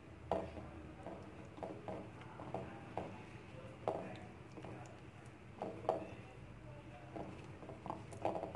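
A hand pressing and patting a chicken drumstick into dry flour coating in a glass bowl: soft, irregular thuds, one or two a second.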